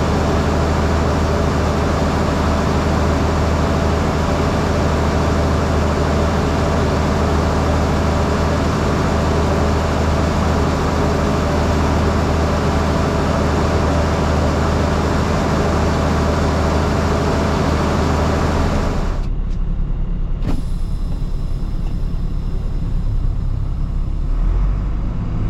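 Truck engine and road noise heard from inside the cab, a steady low hum under a broad rush. About two-thirds of the way through, the rush cuts off suddenly, leaving only a low rumble and a single click.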